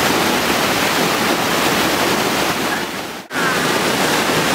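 Steady rush of a waterfall pouring into a river swimming hole, with a brief dropout about three seconds in before the rush resumes.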